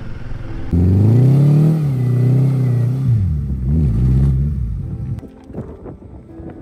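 Motorcycle engine accelerating under throttle, its pitch rising, holding, then wavering and dropping away after about four seconds, followed by a few faint clicks and knocks.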